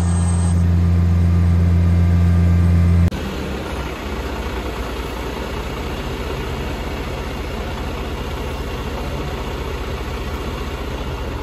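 Vacuum truck running steadily with a deep, even hum. About three seconds in it changes abruptly to a rougher, steady rumble with a fast pulsing texture.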